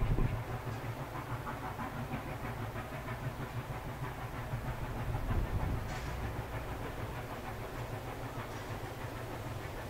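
NSW 36 class steam locomotive 3642 working hard up a steep grade, its exhaust heard under a steady low rumble of strong wind on the microphone.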